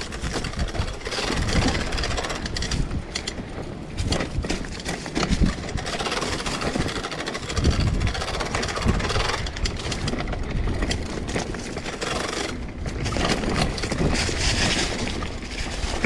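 Mountain bike riding fast down a dirt singletrack: tyres rolling over dirt and dry leaves, and the bike rattling and knocking over bumps many times, over a steady low rumble of wind on the microphone.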